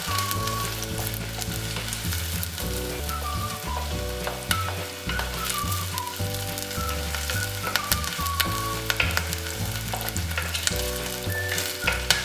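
Sliced shallots and curry leaves sizzling in hot coconut oil in an earthenware pot, stirred with a wooden spoon that knocks and scrapes against the pot now and then.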